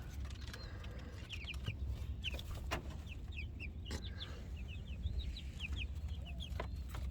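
A flock of chickens calling softly, with many short high chirps and clucks overlapping throughout. A steady low rumble runs underneath, with a few sharp clicks.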